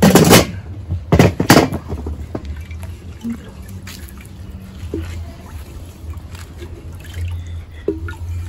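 Liquid splashing in three short loud bursts within the first two seconds, then faint drips and small clicks over a steady low hum.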